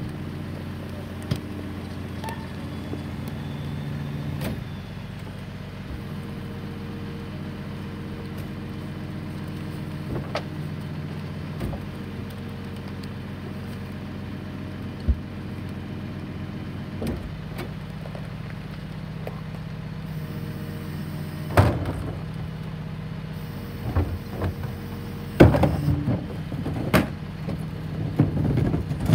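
Rear-loader garbage truck idling with a steady engine hum, while plastic wheeled trash carts are tipped into its hopper, making scattered clanks and thumps that come more often and louder in the last several seconds.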